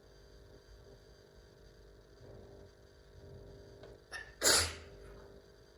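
A person sneezes once, sharply and loudly, about four and a half seconds in, with a short catch of breath just before. A steady low electrical hum runs underneath.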